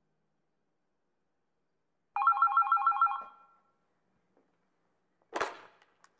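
A bell ringing in a rapid trill for about a second, starting about two seconds in, then a short burst of noise about five seconds in.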